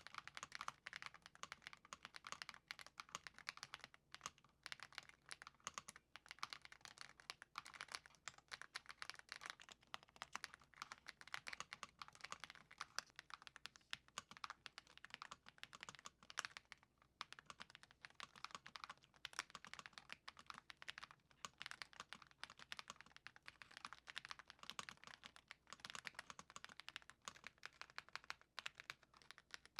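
Steady fast typing on an Ajazz AK980 mechanical keyboard fitted with Gift V2 switches and Womier keycaps, giving a soft, creamy clacking in long runs of keystrokes broken by a few brief pauses.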